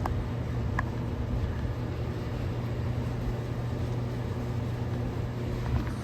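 A 2011 Carrier Comfort 1.5-ton air conditioner condensing unit running: a steady hum from the compressor under the even rush of the condenser fan.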